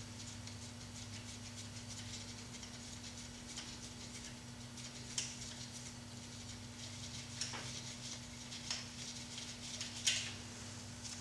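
Scattered light metallic clicks and ticks of hand tools working at the crankshaft pulley of a V6 engine on a stand, the sharpest about five seconds in and again near the end, over a steady low electrical hum.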